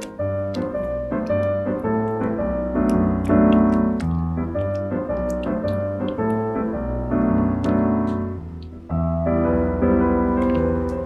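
Background piano music with a steady bass line, dipping briefly about nine seconds in before it carries on.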